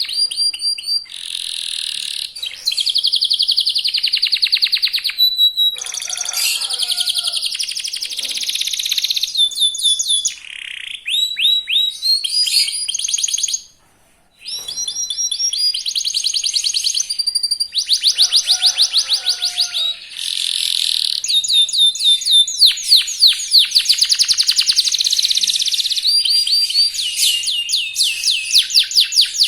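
Young local canary singing a long, fast song of rapid trills and rolls, with a brief pause about halfway through.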